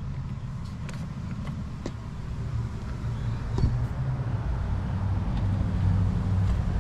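A car's engine running, a low steady drone that grows gradually louder, with a few faint ticks.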